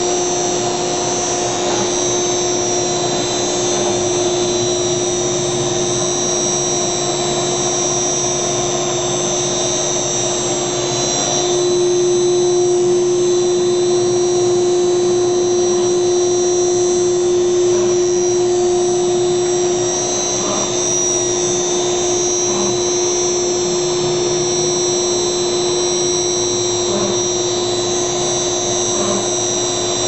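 CNC router spindle running at high speed with a steady high whine over the rush of its dust extraction, drilling rows of holes in copper-clad board. It gets a little louder about twelve seconds in.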